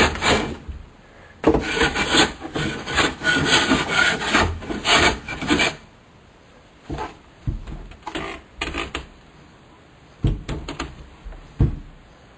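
Master Mechanic 7-inch block plane shaving the edge of a wooden door in a quick run of rough strokes for about four seconds, then a few light knocks and handling sounds.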